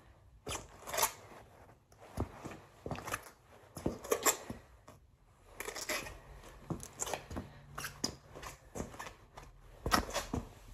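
Hiking boots with chunky rubber soles stepping and shuffling on a floor: irregular scuffs and light knocks as the feet shift and turn, a few sharper steps among them.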